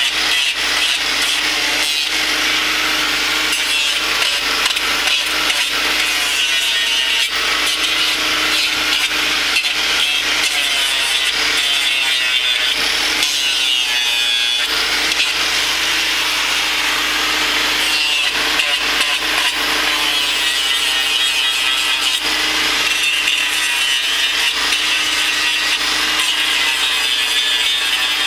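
Hand-held power grinder with a trimming disc cutting into a cow's hoof horn: a continuous, steady rasping grind.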